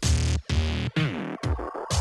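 Electronic music with synthesizer tones and pitch-falling glides, chopped into short bursts by brief cut-outs about every half second.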